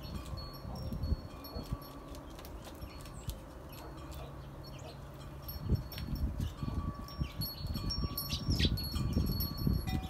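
Wind chimes ringing, with clear sustained tones sounding now and then at several pitches. Under them is a low rumbling noise that grows louder about halfway through.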